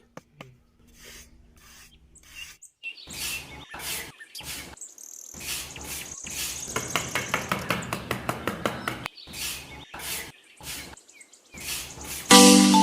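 Birds chirping and insects trilling in short segments that cut off abruptly, with a run of quick, regular clicks in the middle. Chiming, marimba-like music starts loudly near the end.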